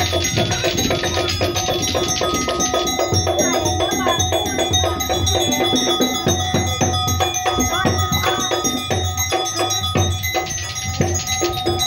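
Topeng monyet accompaniment music: fast, steady drum beats with ringing gong-like metal tones over them.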